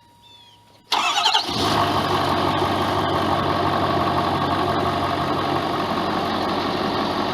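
An engine starts suddenly about a second in and settles straight into a steady idle.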